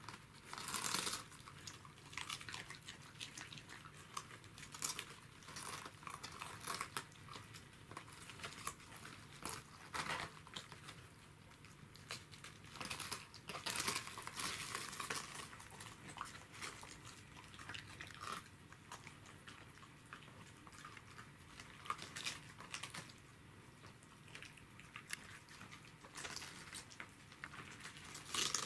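Two Pembroke Welsh corgis chewing and crunching raw cabbage leaves: irregular crisp crunches and crackles of the leaves breaking in their teeth.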